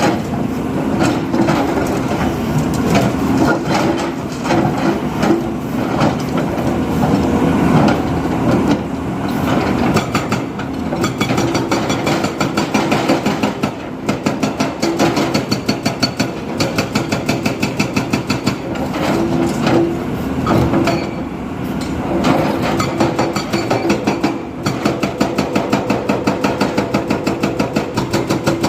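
Diesel engine of a construction machine running, with a rapid, even clatter of about five knocks a second that stands out more plainly from about a third of the way in.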